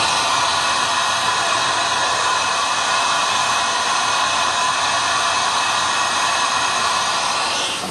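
Steady hiss of a compressed-air blast on a CNC vertical machining center during its automatic tool change, starting and cutting off abruptly.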